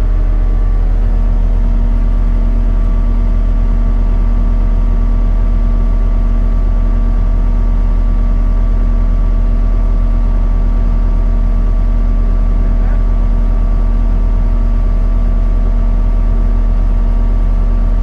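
An engine idling steadily: a loud, even low drone with a few constant tones riding above it.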